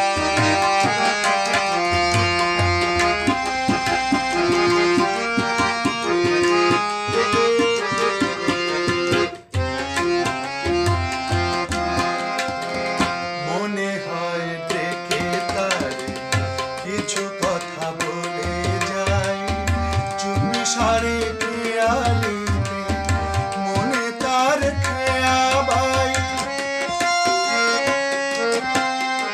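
Harmonium and tabla playing a Bengali song: held reed notes with the tabla's deep strokes under them, and a man's singing voice gliding over it in places. The sound drops out for an instant about a third of the way in.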